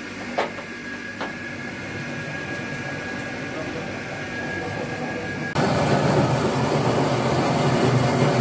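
Borewell drilling rig: a steady hum with a thin high tone and a few metal clinks of wrenches on the drill pipe joint. About five and a half seconds in, a much louder steady machine noise starts suddenly.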